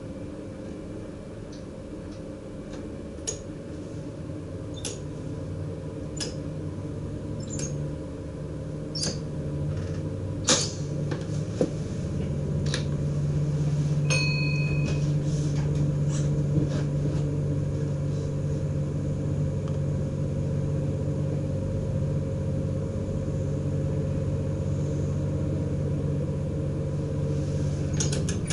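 A DM'90 diesel multiple unit's engine running under power, heard inside the driver's cab, a steady low drone that grows louder over the first half as the train picks up speed. Scattered clicks and rattles run through it, and a short beep sounds about halfway through.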